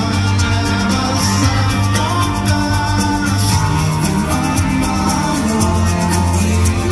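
Live rock band playing: electric guitars over held bass notes, with cymbals ticking steadily, as heard from the audience in a concert hall. The bass note shifts about halfway through.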